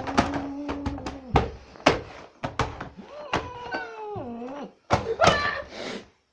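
Domestic cat crying in long, drawn-out meows that hold a note or slide down in pitch, mixed with a run of sharp knocks and thumps. The loudest cry and knock come about five seconds in.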